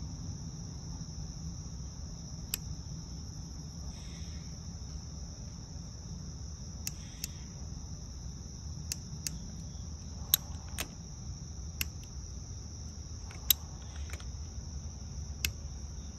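Ratchet wrench on a socket extension tightening a spark plug into the cylinder head of a Lexus CT200h's 1.8-litre four-cylinder engine: a scattered series of single sharp clicks, about ten in all. Under them runs a steady high-pitched chirring and a low hum.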